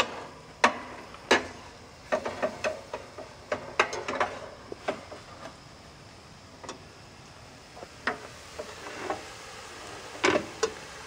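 Cooking utensil scraping and tapping in a stainless steel saucepan on a camp stove, as food is stirred: irregular clicks and knocks, some sharper than others, over a faint steady hiss.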